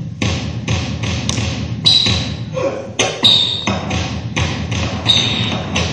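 Backing music with a steady beat of about two and a half knocks a second, with three short high squeaks over it.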